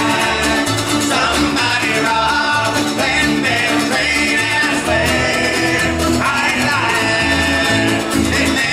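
Bluegrass band playing live: fiddle bowing over strummed and picked mandolins, banjo and acoustic guitars, with an upright bass keeping a steady beat.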